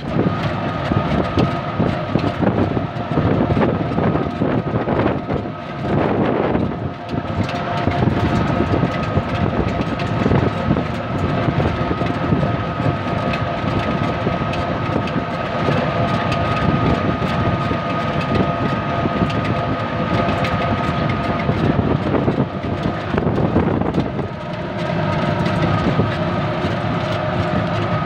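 Ride noise of an open-sided auto-rickshaw moving along a rural road: its motor runs steadily with a thin steady whine over loud road and wind noise.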